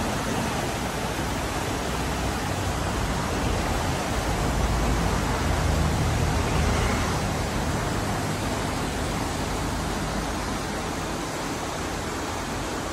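A stream in flood after heavy rain: a steady rush of churning muddy water, swelling slightly in the middle.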